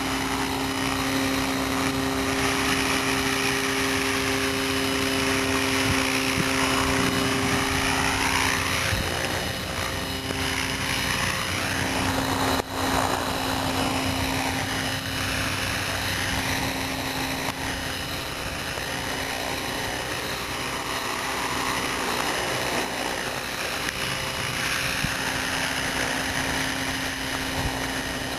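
Hurricane E550 RC helicopter in flight: a steady rotor-and-motor hum whose tone sweeps and shifts as the helicopter moves about and changes height. A brief dip with a click comes about halfway through.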